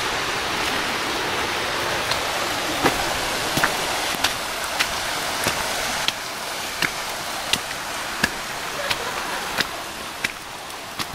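A hiker's footsteps on a snow-dusted trail, sharp crunching steps about every two-thirds of a second, over a steady rushing hiss that drops in level about six seconds in.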